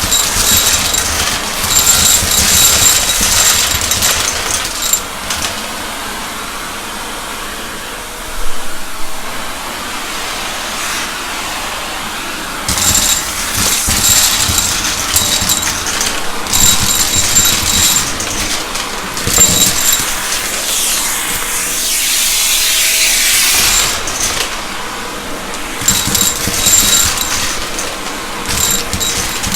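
Shark vacuum cleaner running and picking up spilled debris. Its high whine comes and goes in stretches of a few seconds over a steady rushing hiss.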